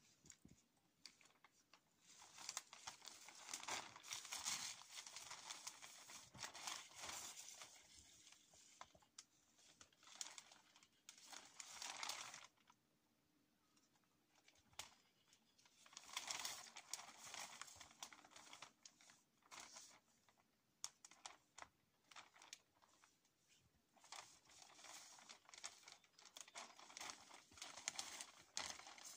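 Plastic sheeting crinkling and rustling as it is handled and spread over a hut frame, in three long stretches with scattered crackles between.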